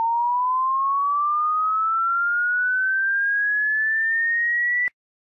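An electronic pure tone sliding slowly and steadily upward in pitch, then cutting off suddenly with a click near the end.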